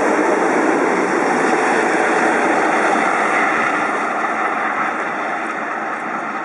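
A convoy of French electric locomotives, a BB 7200 with BB 8508 and BB 8534 in tow, running past and away along the track: a steady rush of wheel-on-rail and running noise that slowly fades as the train recedes.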